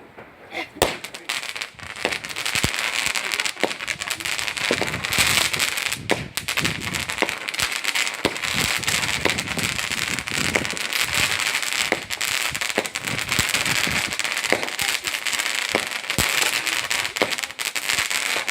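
Fireworks going off: a few sharp bangs, then from about two seconds in a dense, continuous crackling full of sharp pops.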